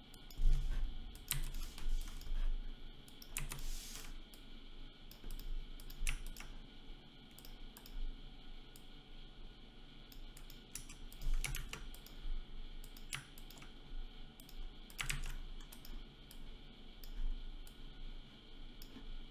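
Irregular clicking of a computer mouse and keyboard, light clicks broken by a few sharper ones.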